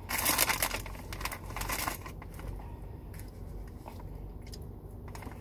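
Crinkling of a plastic snack bag of white cheddar corn puffs as a hand rummages in it for a puff, dense for about the first two seconds and then dying down to a quiet low background.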